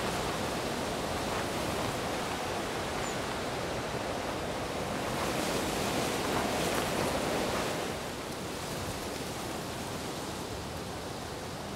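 Gusty wind rushing, an even noise with no distinct events. It swells slightly past the middle and drops a little about eight seconds in.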